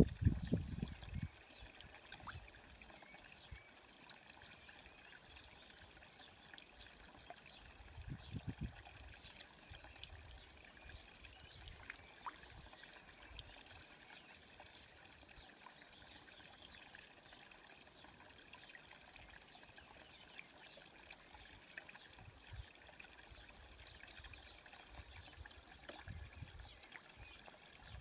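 A cat lapping water from a stone trough: faint small splashes and trickling, with a few low bumps near the start and about eight seconds in.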